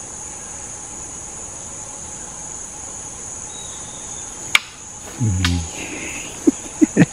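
Steady high-pitched insect chorus with no pauses. A single sharp click comes about four and a half seconds in, a brief low voice follows a second later, and a few more short clicks come near the end.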